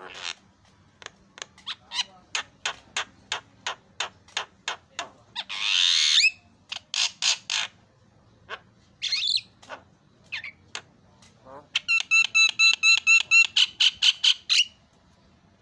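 Javan myna singing: a run of sharp clicking notes about three a second, a harsh rasping squawk about six seconds in, then a fast chattering trill of pitched notes near the end.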